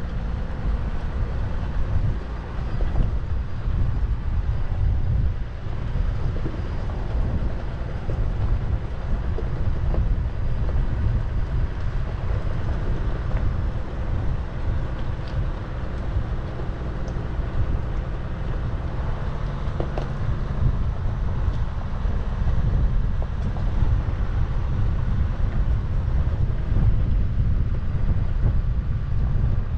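Off-road 4x4 vehicle on the move: a steady low rumble of engine and running gear.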